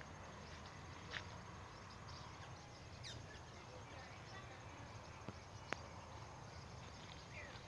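Quiet outdoor ambience: a steady low background hum with a few faint, scattered bird chirps, and a single sharp click about five and a half seconds in.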